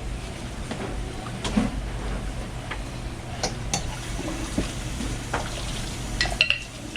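Scattered clinks and knocks of utensils and dishes, with the sharpest strikes about a second and a half in and near the end, over a steady low hum.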